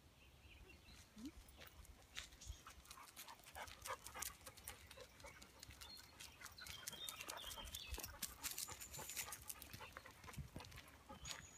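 Paws and boots crunching on a gravel track as several dogs trot and a person walks: faint, irregular crunching clicks, with a few faint high bird whistles in the second half.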